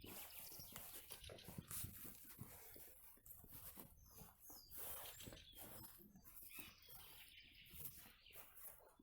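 Faint rustling and clicking, with two short high chirps from a small bird about four seconds in.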